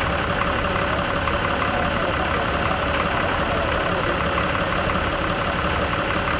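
Farm tractor engine idling steadily close by.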